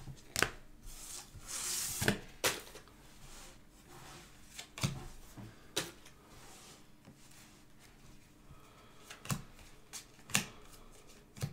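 Football trading cards handled on a tabletop: a scattering of sharp taps and clicks as cards are set down on the stacks, with a short rustle of cards sliding against each other about two seconds in.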